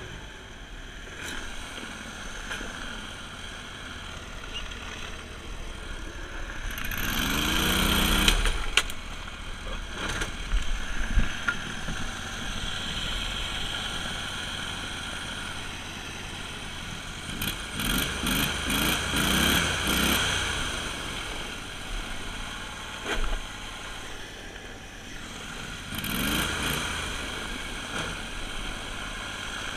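Copperhead surface-drive mud motor running, its air-cooled engine revving up in surges about seven seconds in, again around eighteen to twenty seconds, and near the end, as the propeller churns through shallow water, mud and marsh vegetation.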